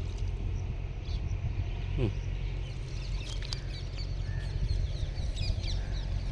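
Birds chirping in short, scattered calls, mostly in the second half, over a steady low rumble.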